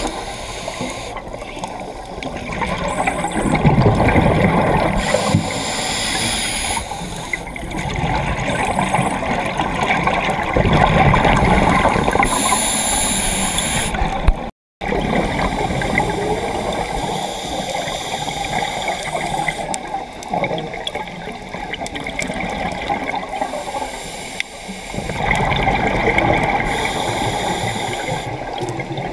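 Underwater scuba breathing: a regulator's breaths and the rush and gurgle of exhaled bubbles, swelling every few seconds. The sound cuts out for a split second about halfway through.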